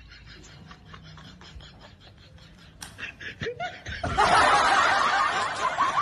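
Laughter: a few short snickers, then loud, dense laughter breaking out about four seconds in and carrying on.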